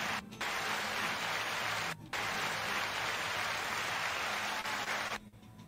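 A steady hiss of noise, broken twice by brief dropouts and stopping shortly before the end.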